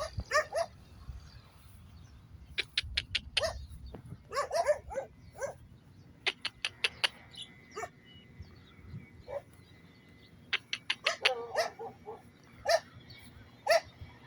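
Dogs barking and yipping, short calls coming in several clusters with pauses between them.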